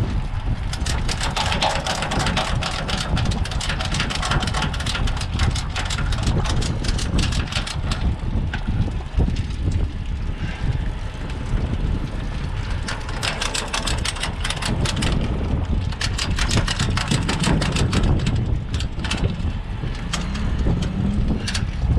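A hand ratchet clicking in quick runs of strokes, in several bursts, over a steady low rumble.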